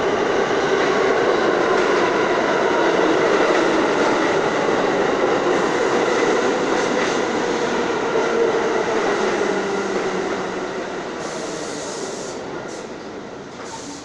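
New York City subway G train pulling into the station alongside the platform, its wheels and motors running loud with a steady whine. The train slows toward a stop and the noise fades, with short hisses near the end.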